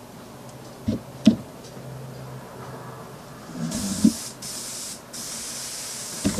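Airbrush hissing as air is triggered through it in spurts, starting a little past halfway with brief breaks, after two sharp clicks. The air pressure is low and the airbrush is not yet drawing paint up.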